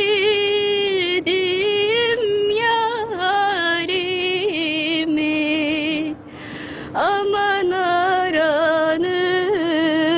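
A woman singing a slow Turkish song solo, holding long notes with vibrato and quick ornamental turns. She breaks for a breath about six seconds in, then sweeps up into the next phrase.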